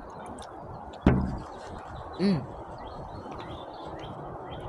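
Small birds chirping over a steady outdoor hiss, with one sharp thump about a second in and a short low vocal grunt just after two seconds.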